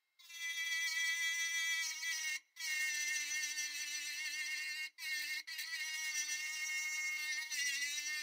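Hand-held Dremel-style rotary tool running at high speed, its small bit working into a pin in the wooden handle panel of an antique pipe wrench. It gives a steady high-pitched whine that cuts out briefly three times, and the pitch sags for a moment near the end as the bit bites.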